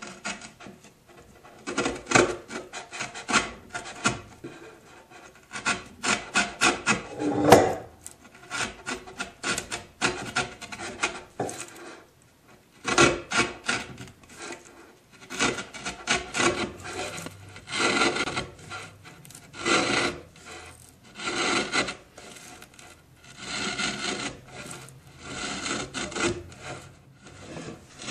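Hand router plane paring the bottom of a hinge mortise in a wooden chest: clusters of short scraping cuts as the blade is pushed back and forth across the wood, with brief pauses between runs. The work is cleaning the mortise flat to its final depth.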